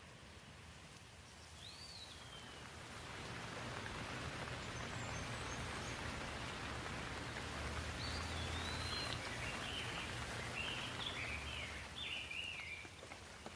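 Steady rain falling, swelling in over the first few seconds and easing off near the end, with a bird chirping once early and in a quick run of calls in the second half.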